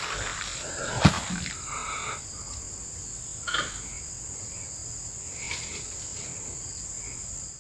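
Insects buzzing steadily in a high, even drone, with one sharp crack about a second in and a few short high chirps.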